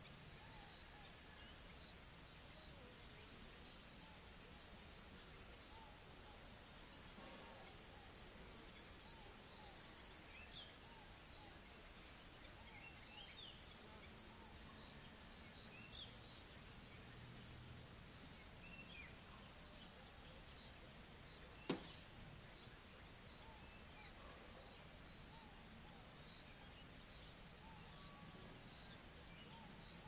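Field insects: a steady high-pitched trill that stops about halfway through, over constant rapid chirping. A few faint short chirps come and go, and one sharp click sounds about two-thirds of the way in.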